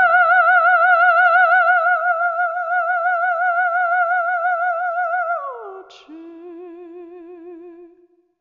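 Music: a single held, warbling note with strong vibrato, like a theremin or an operatic voice, that slides down about five seconds in to a quieter lower note and then stops. A short click sounds just after the slide.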